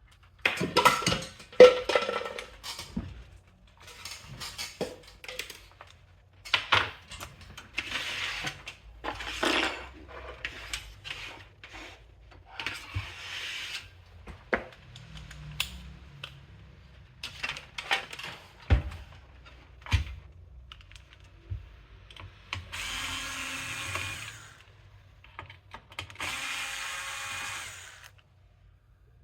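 A desktop computer being taken apart: scattered clicks and rattles of metal case parts and screws being handled. Near the end, two runs of an electric screwdriver, each about two seconds long.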